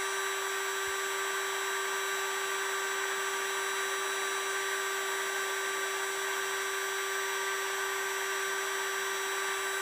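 Hot air gun running steadily: an even whine over the rush of blown air as it heats a metal blade holder to soften the Loctite holding its bearings.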